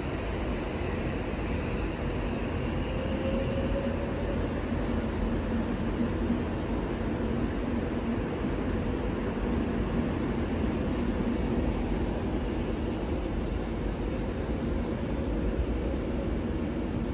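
A train running steadily: a continuous low rumble with a faint hum that rises slightly a few seconds in.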